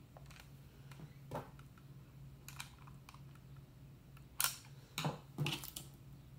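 Light clicks and scrapes of a screwdriver working a screw into the plastic housing of a Trimline telephone handset, the screw not lining up with its hole. A few louder, sharper clicks come about four and a half to five and a half seconds in, over a faint steady low hum.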